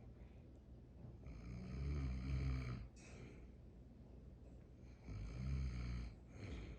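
A sleeping dog snoring: two long, low snores, one starting about a second and a half in and the next about five seconds in, with quieter breathing between them.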